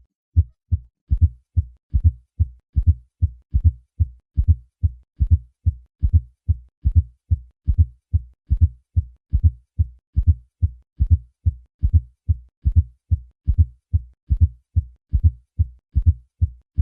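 Heart sounds in a steady triple rhythm: short, low-pitched thuds, a fourth heart sound added just before each first and second heart sound. This is the late-diastolic sound of a stiff, non-compliant ventricle.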